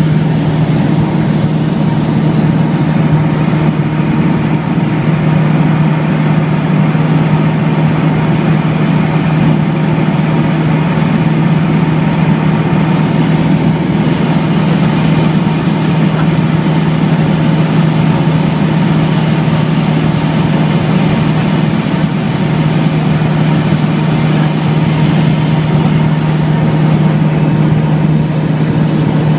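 Light aircraft's piston engine and propeller running steadily in flight, heard from inside the cabin, a loud hum at one unchanging pitch.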